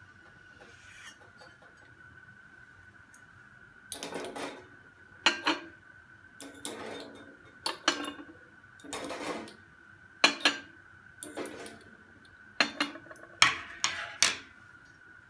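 Glass crucibles clinking and scraping against metal crucible tongs, a wire rack and the perforated plate of a glass desiccator as they are lifted and set down one by one. The first four seconds are quiet, then about a dozen sharp clinks and short scrapes follow at irregular intervals.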